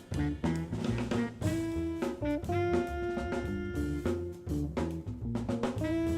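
Small jazz ensemble playing: drum kit keeping time with regular strikes under a moving bass line, while horns hold long notes from about a second and a half in.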